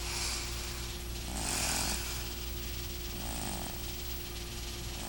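A sleeping cat snoring: soft rasping breaths that come about every two seconds, three in all.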